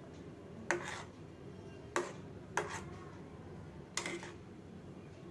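A steel spoon knocking against the side of a steel pan while stirring instant noodles: four sharp clinks with a short metallic ring, over a steady low hum.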